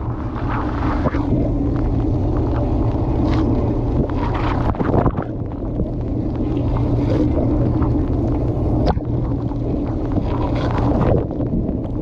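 Dishwasher running its wash cycle, heard from inside the tub: the pump motor hums steadily while water sprays and splashes against the camera and dishes in irregular surges.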